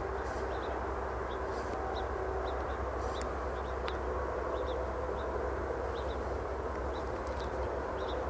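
Steady outdoor background of a low rumble with faint, drawn-out distant tones, and short high chirps coming irregularly, about two a second.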